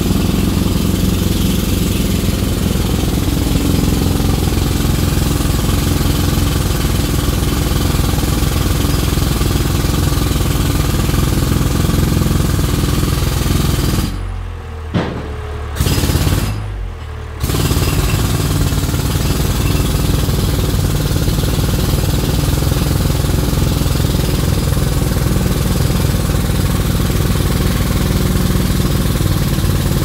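Jackhammer hammering loud and continuous, with two short stops about halfway through before it starts up again.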